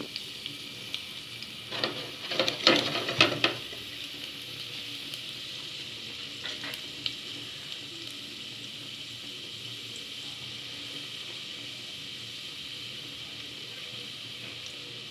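Garlic frying in oil over very high heat: a steady sizzle. A burst of knocks and scrapes from stirring in the pan comes about two seconds in, with a few more clicks around six and a half seconds.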